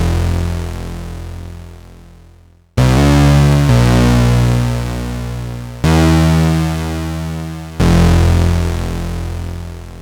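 Arturia MiniBrute 2 analog synthesizer playing a low patch: single notes start sharply about every two seconds, each fading slowly, with a change of pitch a little after the second note begins.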